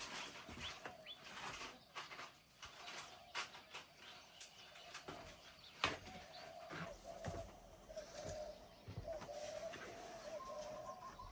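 A dove cooing in broken, wavering phrases through the second half, with scattered light clicks and knocks.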